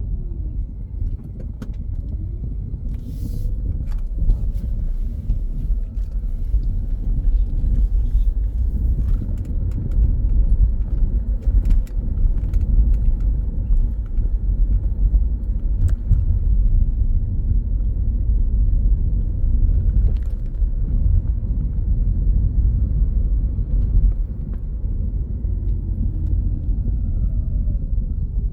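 Steady low rumble throughout, with a faint tone that slides down in pitch near the start and again near the end.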